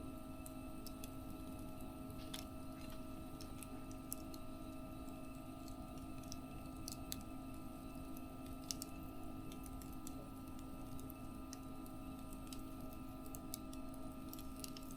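Wood fire crackling: sparse, sharp pops and ticks every second or so, over a steady low hum.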